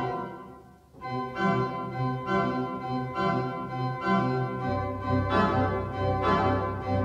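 Church pipe organ playing sustained chords that change about once a second. A chord dies away, the playing resumes about a second in, and a deep pedal bass note joins past the middle.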